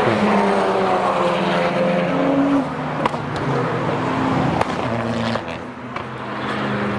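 Modified car engine accelerating past, its pitch stepping up and dropping with gear changes, with a sharp crack about three seconds in and another a little later. The sound eases briefly near the end.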